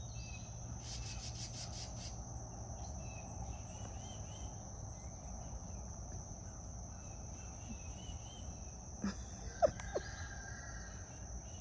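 Rural outdoor ambience: insects droning steadily at a high pitch, with scattered small bird chirps over a low rumble. A brief rapid clicking run comes about a second in, and a few short sharp sounds about nine to ten seconds in are the loudest moments.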